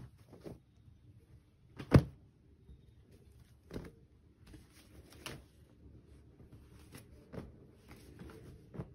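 Cloth rustling and scattered soft knocks as a toddler pulls clothes out of a plastic laundry basket and tosses them about, with the sharpest knock about two seconds in.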